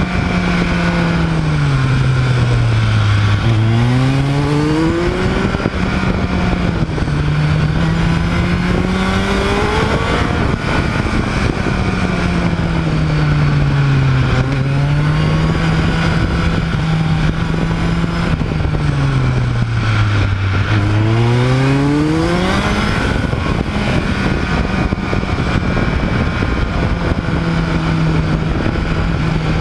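Motorcycle engine and rushing wind heard on board the moving bike. The engine note drops and climbs again three times, easing off into bends and accelerating out of them, and holds steady in between.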